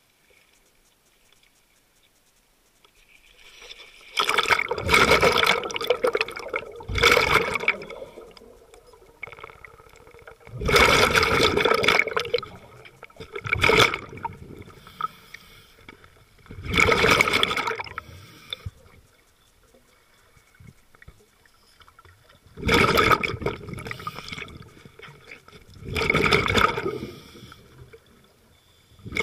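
Scuba regulator exhaust bubbles heard underwater: a diver's breaths let out as rushes of bubbles, each lasting one to two seconds, about seven times, with quiet gaps between.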